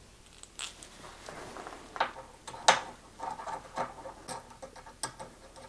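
Scattered light metallic clicks and taps from a hex key and small bolts being worked by hand while spacer blocks are fitted to a CNC rotary mount. The sharpest click falls a little before the middle.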